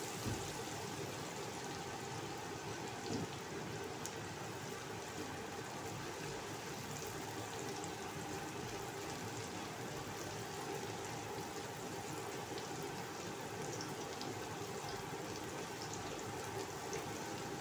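Chopped shallots sizzling steadily in hot oil in a wok as they are stir-fried, with a few light spatula scrapes against the pan.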